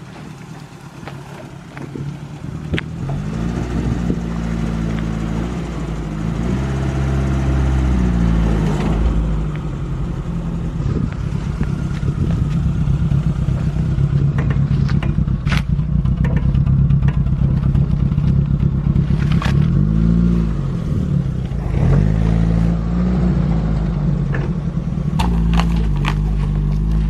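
Suzuki Sierra 4x4's engine under way off-road, revving up and dropping back several times as it changes speed, with clatter and sharp knocks over rough ground.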